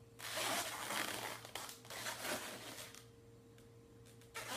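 Inflated latex twisting balloons rubbing and crinkling against each other and against hands as balloon figures are handled. The rubbing runs for about the first three seconds, stops, and starts again near the end.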